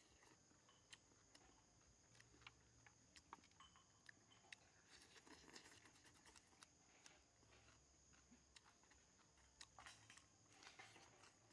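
Near silence with faint eating sounds: scattered small clicks and smacks of chewing, lips and chopsticks, thickest around the middle and near the end, over a faint steady high hiss.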